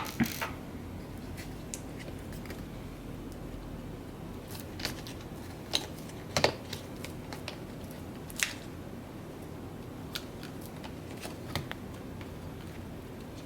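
Scattered light clicks and taps as small parts are handled and seated inside an open MacBook Pro A1502, the speaker units being fitted into the case, over a steady background hiss. The loudest tap comes about six and a half seconds in.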